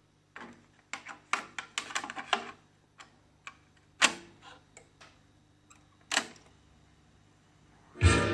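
Mechanical clicks and clunks from a Technics 676 stereo cassette deck being operated: a quick cluster of clicks, then two louder clunks about four and six seconds in. Music starts playing from the deck just before the end.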